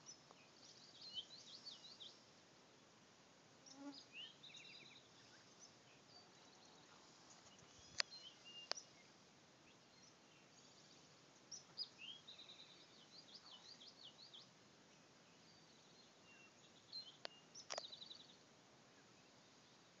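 Songbirds singing in the dawn chorus: short phrases of high chirps and quick trills coming several seconds apart, with a few sharp clicks among them.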